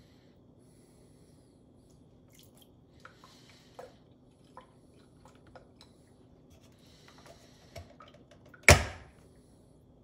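A few light knocks as a ceramic mug is set on the drip tray of an Aicok AC-507K single-serve pod coffee maker, then, about nine seconds in, one loud sharp clack as the brewer's lid is pressed shut over the coffee pod.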